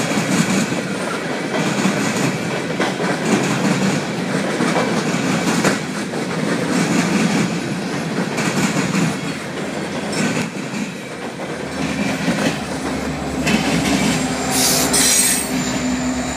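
Empty coal hopper cars rolling past with a steady rumble and wheels clicking over rail joints. About twelve seconds in, the steady hum of a trailing diesel locomotive joins as it draws near, and a brief high squeal sounds near the end.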